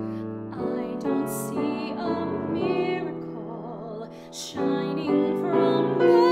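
A woman singing in a classical style with vibrato, accompanied by a grand piano. The voice comes in over the piano chords about half a second in.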